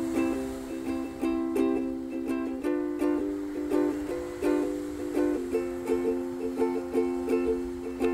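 Background music: a light tune of strummed, plucked string chords with a steady rhythm.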